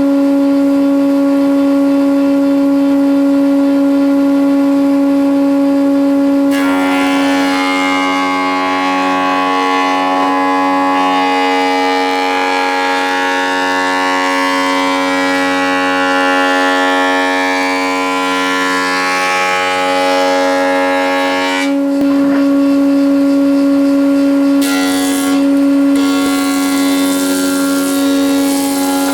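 A power woodworking machine's motor running with a steady high whine. From about six seconds in until about twenty-two seconds in, a rougher hiss over the whine shifts in pitch.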